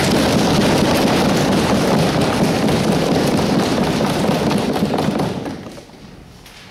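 Audience applauding, starting suddenly and dying away about five seconds in.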